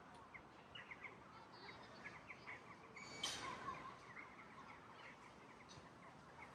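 Faint outdoor ambience with small birds chirping, many short repeated chirps over a steady background hiss, and one brief louder sound about three seconds in.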